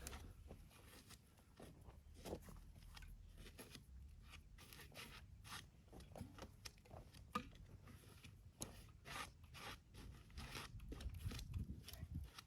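Near silence with faint, scattered crunches, clicks and scrapes, a little busier near the end.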